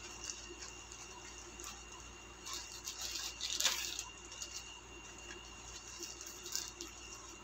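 Plastic mailer bag and the clear plastic bag inside it being handled, crinkling and rustling in small bursts, loudest about halfway through as the contents are pulled out.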